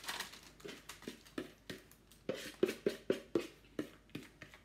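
Rocky road mixture being worked out of an upturned mixing bowl into a lined tray: a rapid series of short knocks and scrapes against the bowl, about three a second.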